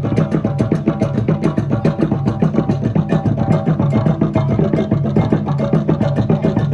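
Music with a fast, steady beat.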